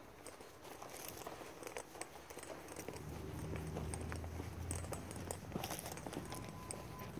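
Faint rustling and scattered light ticks of footsteps and a puppy's paws moving over dry leaves and dirt, with a low rumble through the middle.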